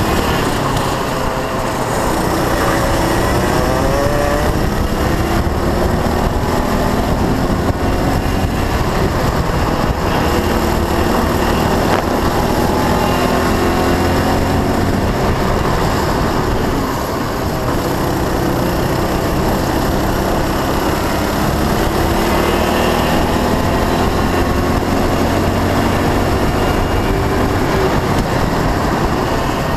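Onboard sound of a Honda Cadet kart's small single-cylinder four-stroke engine at racing speed. The revs climb on the straights and drop into the corners several times over, with a steady rush of noise underneath.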